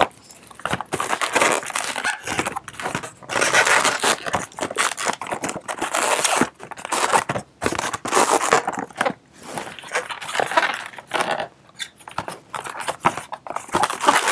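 Inflated latex modelling balloons (blush 260s) squeaking and rubbing against each other as they are twisted together by hand, in short irregular stretches with brief pauses.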